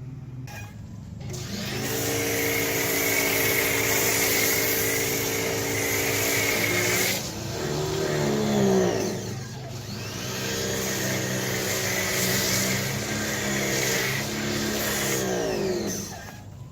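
Blue Clean 1900 psi electric pressure washer running with a foam cannon on the wand, its motor hum under the hiss of the spray. It runs twice: once from about two seconds in, when it winds down with a falling pitch, and again from about ten seconds in until it spins down near the end.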